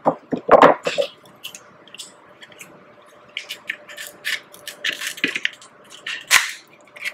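Close-miked wet chewing and lip-smacking while eating king crab meat, mixed with small clicks and cracks of crab shell being picked apart. A sharper, louder smack or crack comes about six seconds in.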